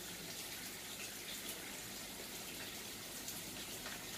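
A faint, steady hiss with no distinct clicks or knocks.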